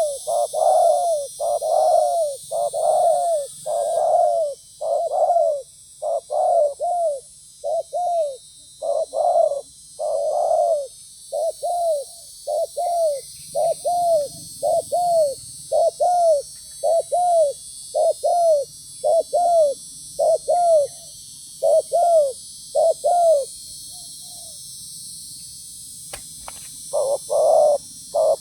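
Spotted doves (terkukur) calling in a fast, unbroken series of short arched coo notes, about two a second, over a steady high hiss. The calling breaks off for a few seconds near the end, then starts again.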